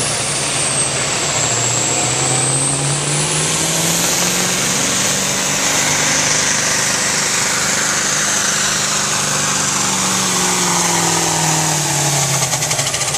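Massey Ferguson diesel farm tractor pulling a sled at full throttle, its engine running loud and hard under load. The pitch holds fairly steady, then drops near the end as the engine lugs down.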